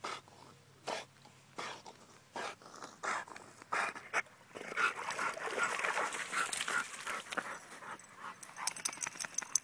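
Dog swimming and breathing hard, a loud breath about every three-quarters of a second. About halfway through it wades out over the stony shore with water splashing, and its panting becomes faster and continuous.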